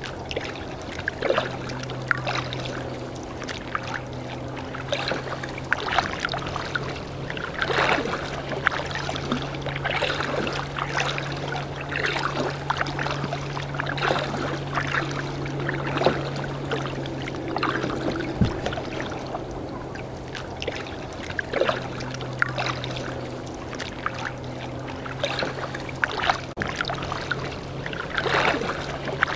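Kayak paddle strokes dipping and splashing in the water every second or two, over a steady low hum.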